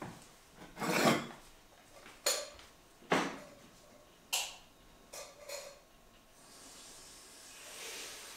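Dishes and utensils handled at a kitchen counter: several separate clinks and knocks over the first five seconds or so, then a soft hiss that swells towards the end.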